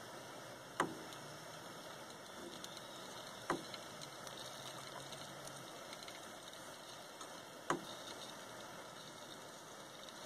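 Gas soldering torch burning with a steady hiss while heating a copper-to-brass joint for sweat-soldering, with three sharp clicks spread through it.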